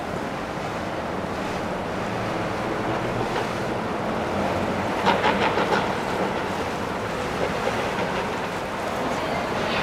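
Boat out on the water: water washing and churning over a low engine hum, with wind on the microphone. A quick run of slaps comes about five seconds in.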